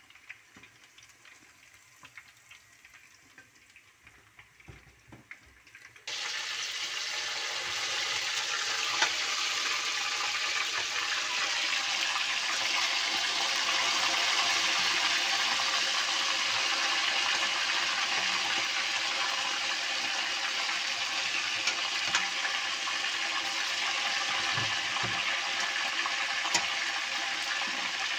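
Meat pieces deep-frying in a pot of hot oil: a steady, loud sizzling hiss that starts abruptly about six seconds in, after a few seconds of faint quiet with light ticks.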